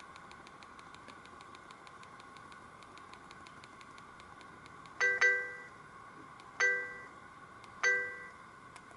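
Chime tone played on a Sony Ericsson K200i mobile phone: a quick two-note ding about five seconds in, then two single dings about a second and a half apart, each dying away quickly, over a steady hiss.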